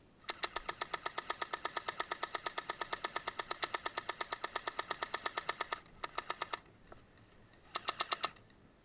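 Airsoft M60 electric gun firing on full auto: one long burst of about five seconds, rapid even clicks about ten a second, then two short bursts near the end.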